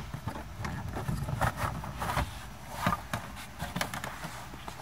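Irregular clicks, knocks and rustling of a Tesla Model S's plastic footwell trim being pulled loose and handled by hand.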